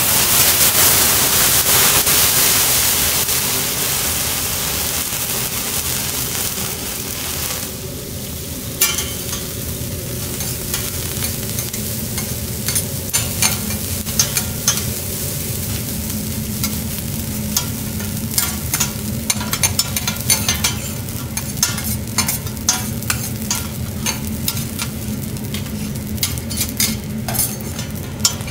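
Garlic fried rice sizzling on a hot steel teppanyaki griddle. A loud hiss fades over the first seven seconds or so, then a metal spatula scrapes and clicks against the plate again and again as the rice is stirred and chopped.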